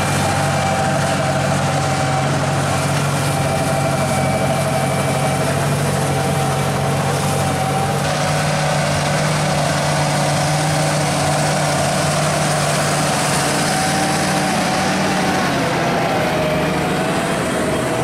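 John Deere 8R-series tractor's diesel engine running steadily under load as it pulls a reversible plough through the soil.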